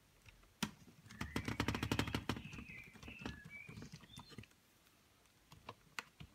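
Small clicks and taps from tiny Phillips screws and a small screwdriver being worked into the plastic case of a Newton MessagePad, with a fast run of clicks from about one to two and a half seconds in and scattered single clicks after.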